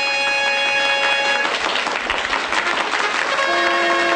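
A small dance band's wind section, saxophone and clarinet among them, holds a sustained chord over a crowd clapping. Their chord breaks off after about a second and a half, leaving the applause alone. Near the end the band sounds another held chord.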